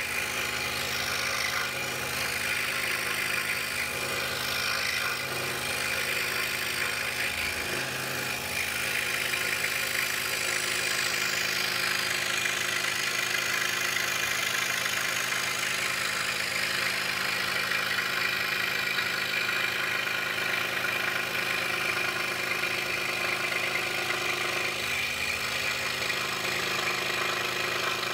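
DeWalt scroll saw running steadily, its blade stroking up and down as it cuts the curves of a wooden puzzle.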